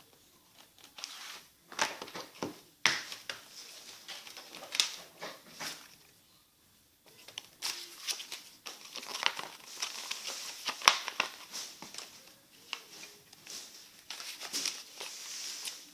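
Plastic shrink-wrap being torn and crinkled off a disc case, in irregular crackling spurts with sharp clicks and a short pause partway through.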